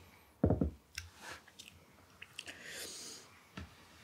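Mouth and nose sounds of someone tasting a thick pumpkin sour ale. There is a short low throaty sound about half a second in, then small lip and tongue clicks, and a long sniff at the glass near three seconds in.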